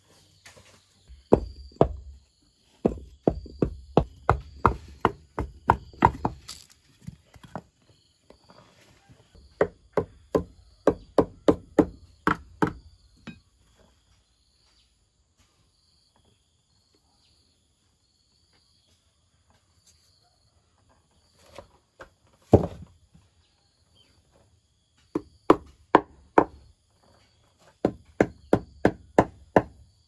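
Repeated chopping blows of a hand tool, in runs of about three strikes a second with pauses between them, and a long break in the middle broken by a single strike. Faint insects chirp steadily underneath.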